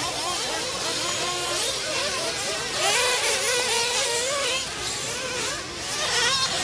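Several nitro RC buggy engines buzzing at once, their pitch rising and falling as the cars rev and back off around the track.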